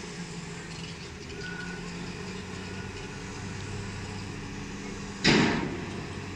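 JCB wheel loader's diesel engine running steadily with a low drone. About five seconds in comes a sudden loud rushing crash that dies away within about a second.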